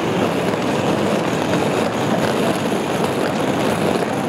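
Steady city street noise, mostly passing vehicle traffic.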